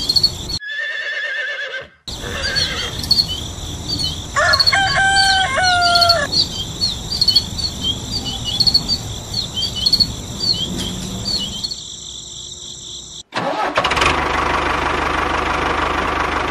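Dubbed farm ambience. A bird chirps over and over at an even pace, about three chirps a second, over a steady high hiss, with a longer animal call at around four to six seconds. After a brief break near the end, a tractor engine runs with a dense, rough noise.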